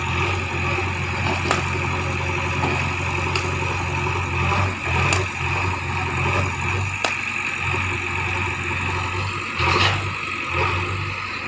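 JCB 3DX backhoe loader's diesel engine running steadily as the backhoe arm works, with a steady drone throughout. Several sharp knocks ring out a few seconds apart, and there is a brief louder swell near the end.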